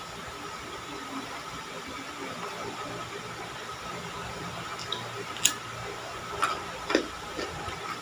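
Steady background hiss, with a few short sharp clicks and smacks in the second half, the loudest about five and a half seconds in. These are the sounds of someone eating by hand: chewing and fingers working food on the plate.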